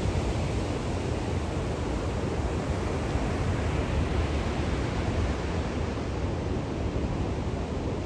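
Atlantic Ocean surf: a steady rushing wash of waves with a low rumble underneath, swelling slightly about halfway through.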